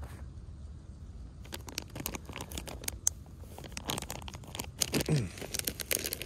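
Scratchy rustling and clicking of a fabric backpack being handled, with its zipper starting to be pulled open near the end.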